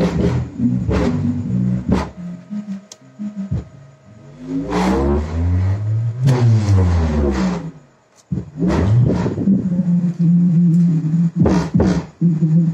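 Loud music with a heavy bass beat played through a car's trunk-mounted paredão sound system with large subwoofers, during a test of the setup. About halfway through, the beat drops out and a deep tone glides up and back down. The beat comes back a couple of seconds later.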